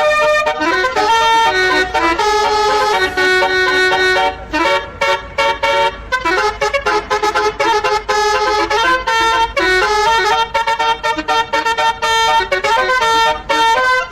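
Basuri "telolet" musical air horn on a bus playing a melody, its horn tones stepping from note to note, with short notes and held ones.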